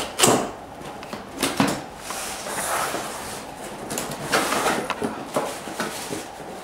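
Cardboard box being opened and handled by hand: cardboard scraping and rustling, with several sharp knocks.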